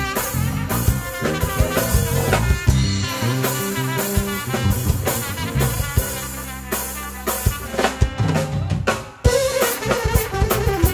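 Acoustic drum kit played hard with many quick snare and tom strokes and cymbals, over Bulgarian folk band music with a stepping bass line. Just after nine seconds the drums break off for a moment and a wavering melody line comes in.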